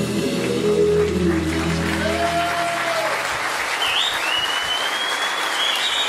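Two men singing the final held note of a folk ballad over acoustic guitar and backing, ending a little under halfway through. An audience then applauds, with a high whistle held through the applause near the end.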